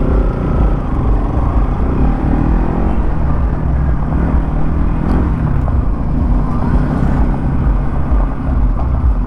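Bajaj Pulsar motorcycle engine running as it is ridden slowly, its pitch rising and falling with the throttle, over a steady low rumble.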